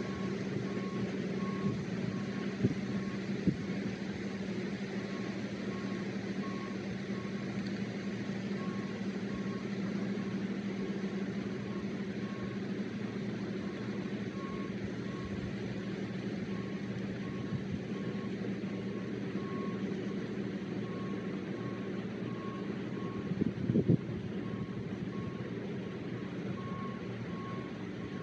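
John Deere 9660 STS combine's diesel engine running at a steady working drone while harvesting corn and unloading through its auger. A short electronic beep repeats about twice a second over it, and there is a brief knock near the end.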